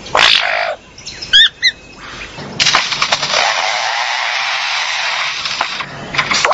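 Superb lyrebird mimicking foresters' chainsaws: a brief rasp, a few short rising chirps about a second and a half in, then a long steady chainsaw-like rasp that starts about two and a half seconds in.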